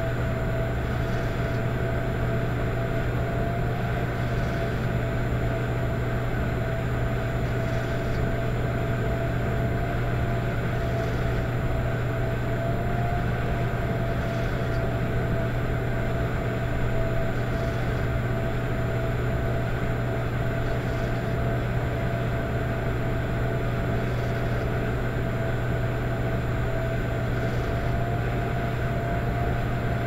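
Electric fireplace running: a steady low hum with a soft, rhythmic snoring-like noise about every three seconds.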